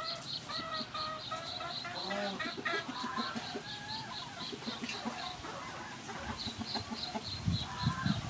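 Chickens clucking, over a steady high chirp that repeats about four times a second and pauses briefly about five seconds in.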